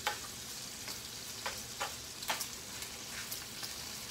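Bacon frying in a pot: a steady sizzle with scattered sharp pops and crackles of spitting fat.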